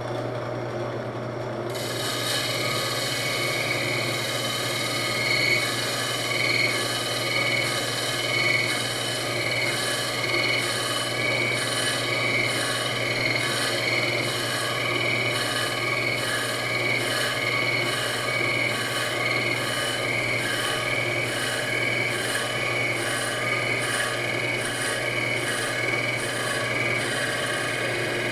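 Wood lathe running with a steady hum while a cutting tool scrapes wood from the inside of a spinning wooden banjo rim, truing it round. The rasping is steady, with a faint regular pulse a little under a second apart.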